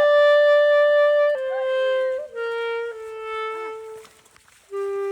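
Background music: a wind instrument playing a slow melody of long held notes that step downward, with a brief pause about four seconds in before the next note.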